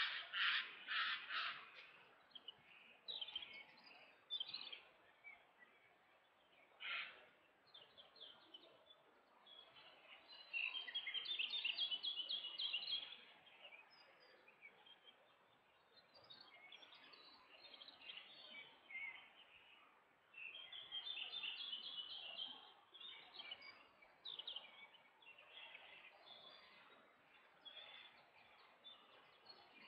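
Faint songbirds singing and calling: scattered chirps throughout, with longer rapid trills, a brief burst right at the start, one near the middle and another about two-thirds of the way through.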